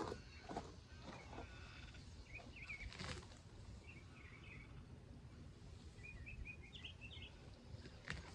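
Birds chirping in three short runs of quick notes over a low background rumble, with a few soft knocks or rustles.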